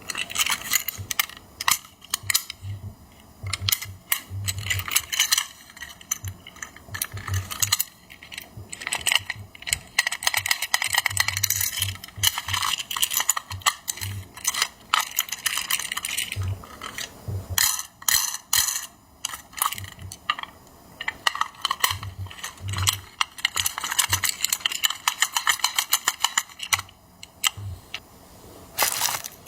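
Hands handling a die-cast toy truck and its packaging: a dense run of clicks, taps and light metallic clinks, with a few soft thumps.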